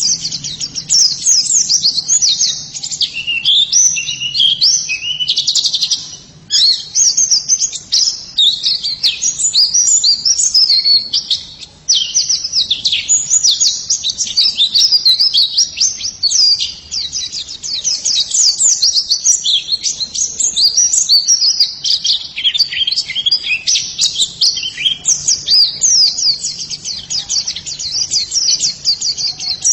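White-eye (pleci) singing a long, rapid twittering song of high chirps, with brief breaks about six and twelve seconds in.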